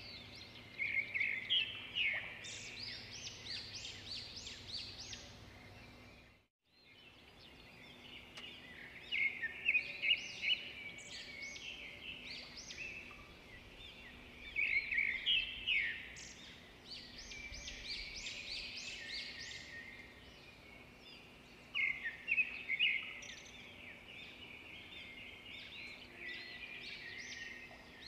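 Songbirds chirping and singing in repeated bursts of quick high notes and short sweeping calls over a faint steady outdoor background. The sound cuts out briefly about six seconds in.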